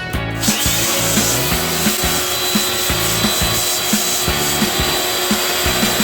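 A cleaning machine starts with a sudden loud, steady hiss about half a second in, over background music with a steady beat.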